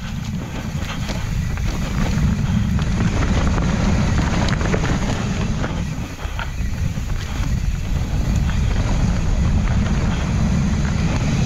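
Wind buffeting the microphone of a mountain biker riding the trail, with tyre noise and scattered clicks and rattles from the bike over the ground.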